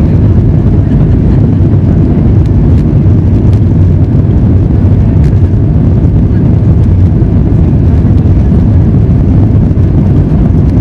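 Steady low rumble heard inside the cabin of a Boeing 737 MAX 8, from its CFM LEAP-1B jet engines and the wheels as the jet rolls along the runway.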